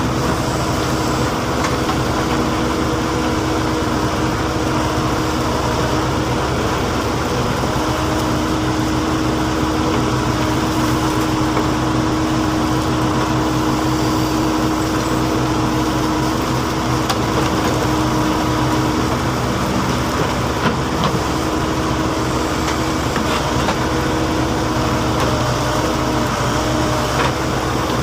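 Diesel engine of heavy earthmoving equipment running steadily at a constant speed, with no revving.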